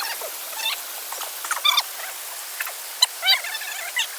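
River water rushing steadily, with many short, high-pitched calls that bend in pitch scattered over it.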